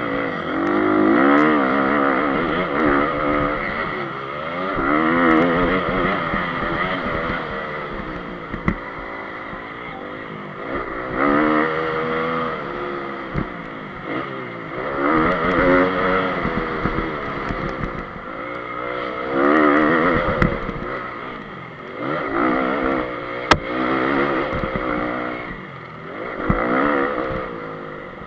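2014 Honda CRF 250 single-cylinder four-stroke engine racing around a motocross track, heard from on the bike: it revs up and drops back about seven times as the rider accelerates out of each turn and shuts off for the next, with a few sharp knocks from the bike over the rough dirt.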